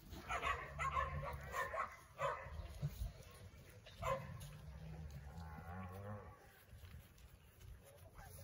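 Animal calls: a run of short, high calls in the first few seconds over a long, low call that fades out about six seconds in.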